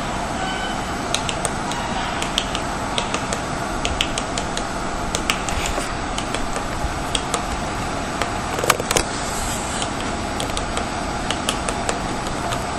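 Woodpecker tapping at pine bark: irregular single sharp taps, one to three a second, with a louder cluster about nine seconds in, over a steady hiss.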